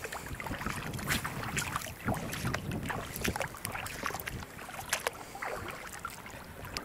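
Wind on the microphone, with irregular small splashes and trickles of shallow water.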